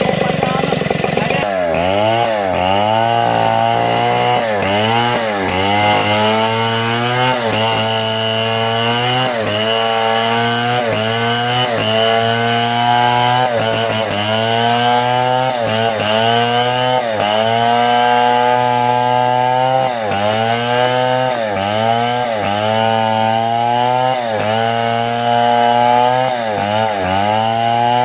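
Chainsaw cutting wood, its engine pitch dipping and recovering every second or two as the chain bites in.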